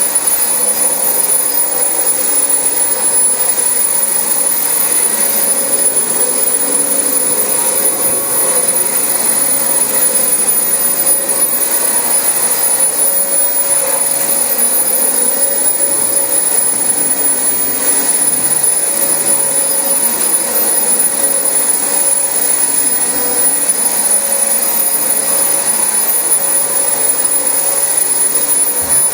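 Dyson DC25 upright vacuum cleaner running steadily over carpet, its motor noise carrying a steady high whine.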